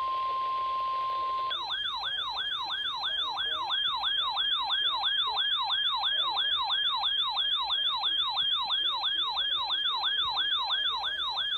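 A steady electronic alert tone near 1 kHz, typical of the NOAA Weather Radio 1050 Hz warning alarm, for about a second and a half. Then an electronic siren alert, a fast up-and-down yelp about three times a second, that cuts off suddenly at the very end.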